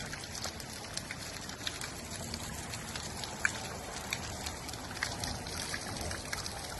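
Small rain-fed stream running down over rocks in rapids: a steady rush of water with scattered little splashes.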